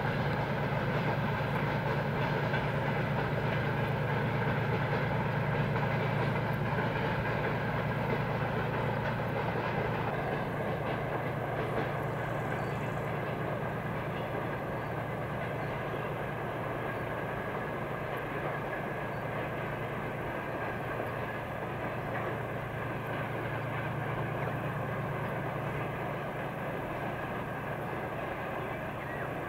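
Freight train hauled by 2TE10 two-stroke diesel locomotives rolling past: a steady rumble of wagons on the rails under a low engine drone, easing slightly about a third of the way in.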